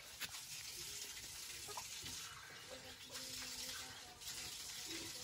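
Steady rushing hiss of outdoor background noise, swelling briefly about two and a half seconds in, with a few faint short tones.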